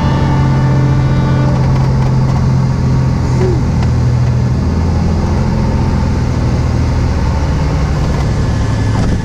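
Single-engine propeller airplane's piston engine running steadily at low power during the landing rollout, a low drone heard from inside the cockpit.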